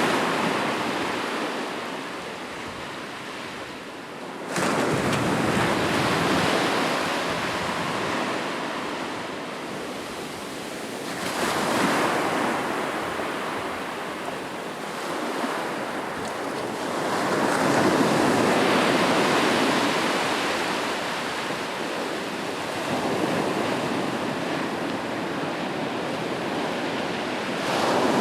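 Ocean waves breaking on a shore: a continuous wash of surf that swells about five times, each new wave rising as the last one draws back. The most abrupt crash comes about four and a half seconds in.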